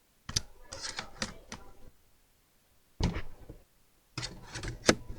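Clicking and clattering of hard parts being handled during laptop repair, in three bursts, the last the loudest.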